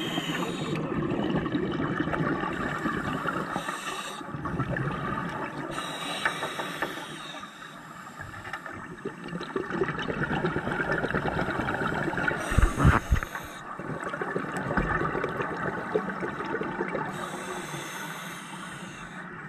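Scuba diver breathing through a regulator underwater, heard through the camera housing: a hissing inhale through the demand valve about every five to six seconds, with exhaled bubbles gurgling and rumbling in between. A short louder burst comes about two-thirds of the way in.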